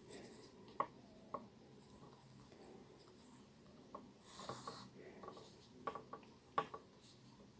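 Faint handling sounds of needlework: thin fabric rustling and thread being drawn through as a needle stitches a lace edging, with a few soft clicks.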